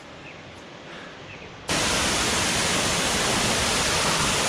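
Waterfall rushing: a faint, steady rush that jumps abruptly to a loud, even roar about a second and a half in.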